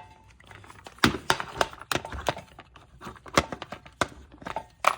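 Irregular sharp clicks and light knocks of hand work on the car's front brake, about a dozen scattered through, the strongest about a second in and near the end.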